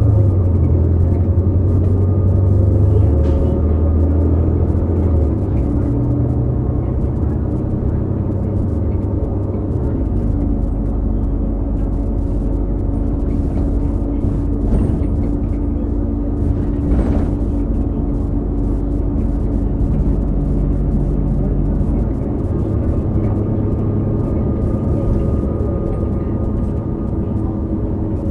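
Inside a New Flyer XD40 transit bus on the move: a Cummins L9 diesel engine and Allison B3400xFE transmission running, with a heavy low rumble for the first few seconds and steady whines over it, one starting about ten seconds in and stopping about twelve seconds later. The whine comes from transmission bearings that are making an odd sound, an issue shared by several buses of this series.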